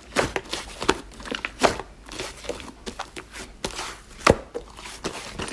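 Slime being squished and pressed by hand, giving a run of irregular crackly clicks and pops, with one louder pop a little past four seconds in.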